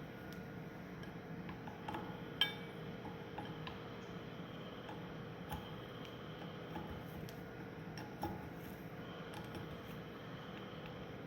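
Small metallic clinks and taps of tools and steel parts being handled during hydraulic cylinder work, with one sharper ringing clink about two and a half seconds in, over a steady background hum.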